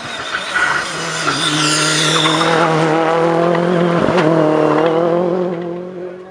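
Ford Fiesta rally car engine at full throttle as the car climbs towards and past, holding a steady high note with a brief dip for a gear change about four seconds in. The sound falls away near the end as the car pulls off up the road.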